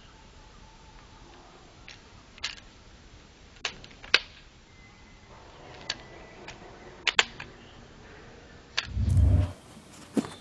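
Butterfly knife (balisong) handles and blade clicking against each other as the knife is handled and flipped: scattered sharp metallic clicks, two in quick succession about seven seconds in. A low dull thump comes near the end.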